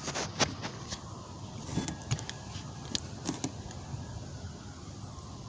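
Scattered light metallic clicks and taps of tools and small parts being handled at a car door while the door latch assembly is fitted, over a steady low rumble.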